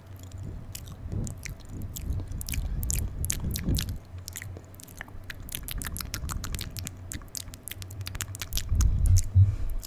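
Close-miked ASMR mouth sounds: a fast run of sharp clicks and smacks from lips and tongue, with low thumps on the microphone near the start and again, loudest, near the end.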